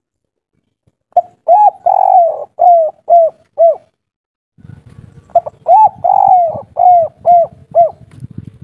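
Spotted dove cooing two identical song phrases of six notes each: a short note, an arched note, one long drawn-out coo, then three short arched 'kuk' notes, the three-note ending of the 'kuk 3' song type. A low rumble runs under the second phrase.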